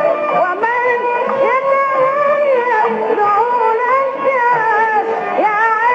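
Middle Eastern-style song with a singer holding long, wavering and gliding notes over accompaniment, received as a medium-wave AM radio broadcast, so it sounds narrow and band-limited.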